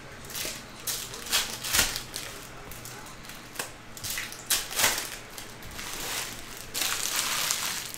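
Foil trading-card pack wrappers crinkling as packs are opened and handled by hand: a run of short crackly rustles, with a longer one near the end.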